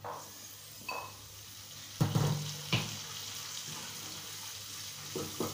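A covered pan of black chickpeas sizzling steadily once its lid is lifted off, with two knocks as the lid is set down about two seconds in, then a spatula stirring through the chickpeas.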